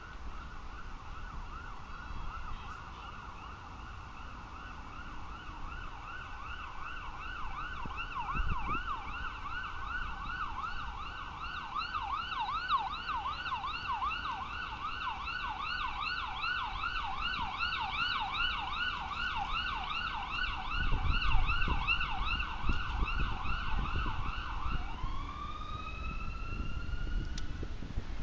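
Emergency-vehicle siren on a fast yelp, with rapid up-and-down sweeps. Near the end it changes to one slower rising wail and then stops.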